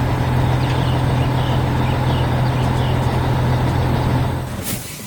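Heavy truck's diesel engine running steadily with a low drone, fading out near the end, where a short hiss sounds.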